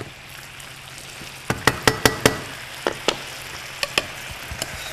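Garlic chicken stir-fry sizzling in a hot skillet as it is stirred, with sharp clicks and clacks from the tongs and spatula knocking against the pan: a quick cluster about a second and a half in, then more spread out toward the end.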